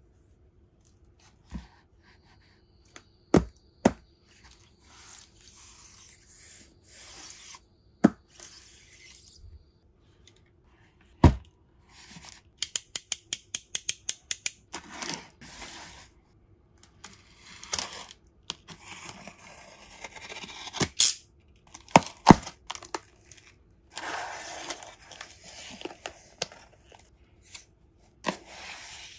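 Unboxing a cardboard parcel: scattered sharp knocks, then a quick run of ratcheting clicks as a snap-off utility knife's blade is pushed out. Packing tape is then sliced and torn in rasping stretches, and the cardboard flaps and paper packing are handled with rustling.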